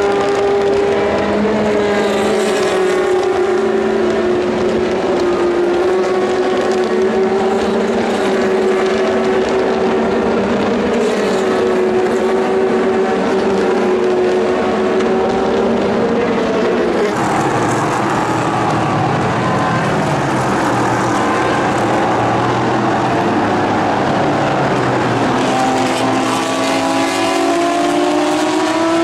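Sports-prototype and GT race car engines running at speed on a soaked track, a steady high engine note that wavers as the cars lift and change gear. About halfway through, the note changes as other cars take over, and near the end the pitch climbs as they accelerate.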